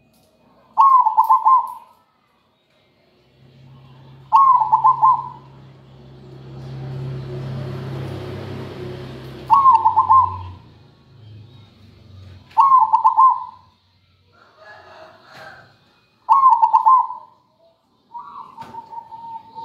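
Zebra dove (perkutut) singing its trilled, rhythmic coo, five short phrases a few seconds apart. A low rumble swells and fades in the middle.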